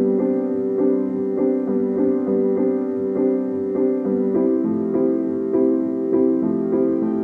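Background piano music, notes struck at an even pace, with a change to a lower chord about four and a half seconds in.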